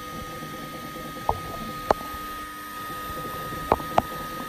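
Ultimaker 3 Extended 3D printer running mid-print: its stepper motors give a steady whine of several held tones, with four sharp clicks along the way.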